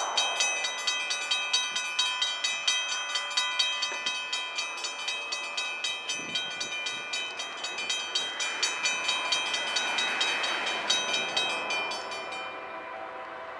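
Railroad crossing bell ringing rapidly, about three to four strokes a second, then stopping shortly before the end as a train approaches.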